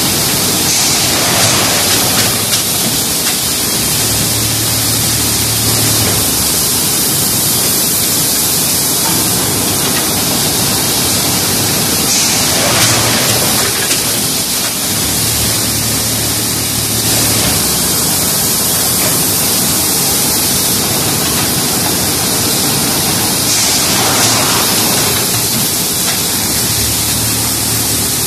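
Machinery of an automatic dog-food bag-filling line running: a loud, steady hissing noise, with a brief surge about every eleven seconds and a low hum coming in for about two seconds a few seconds after each surge, as the machine works through its bagging cycle.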